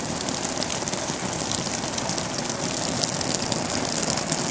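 Simulated heavy rain: water sprayed onto 14 oz ripstop canvas in a steady, dense patter of drops on the fabric.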